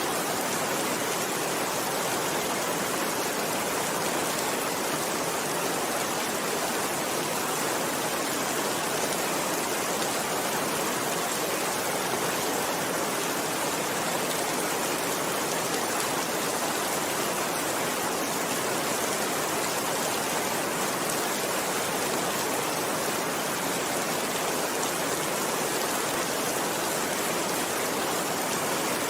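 Steady rain, heard as an even, unbroken hiss with no single drops standing out and no change in strength.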